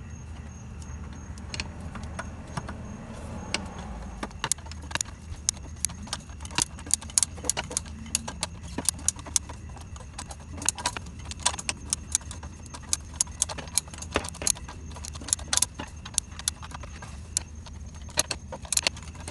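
Ratchet turning a 5/8-inch socket on an extension to back out the last alternator bolt: sharp metallic clicks, sparse at first, then coming in quick runs from about six seconds in, over a steady low hum.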